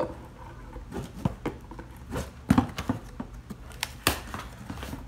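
Hands handling and opening a cardboard shipping box: irregular taps, knocks and scrapes of cardboard.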